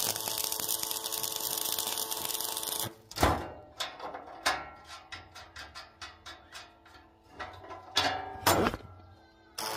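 Metalworking on steel: a dense steady hiss runs for about three seconds and stops, then comes a sharp metal knock, a string of light taps and clinks, and two loud knocks half a second apart. The steady hiss starts again just before the end.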